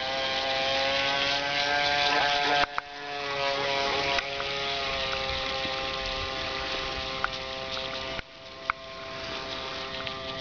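Electric motor of an RC model runabout (Kyosho AP-29 type) whining steadily as the boat runs at speed, its pitch drifting slightly. The sound breaks off abruptly twice, about two and a half seconds in and again about eight seconds in, then carries on.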